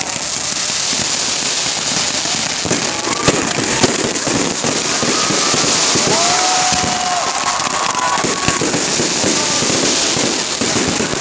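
Aerial fireworks going off: dense, continuous crackling packed with bangs, with two sharper bangs a little over three seconds in.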